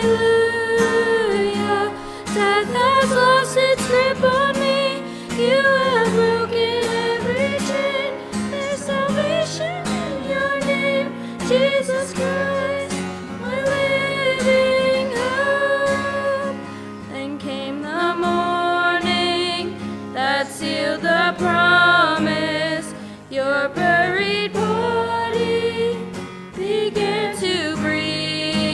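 Worship song sung with acoustic guitar accompaniment, the voice carrying a sustained melody.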